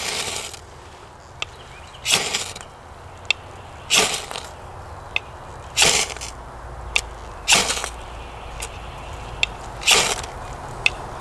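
A knife scraped hard down a 6-inch by 1/2-inch ferro rod, six rasping strokes about every two seconds, with light ticks between strokes. The strikes throw sparks onto fatwood that is not igniting.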